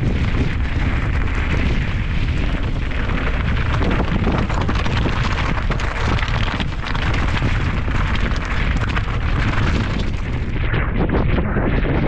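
Wind buffeting the microphone in a loud, steady rumble, with small knocks and scrapes through it.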